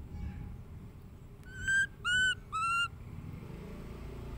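Baby monkey giving three short, high calls in quick succession, each slightly arched in pitch, about a second and a half in.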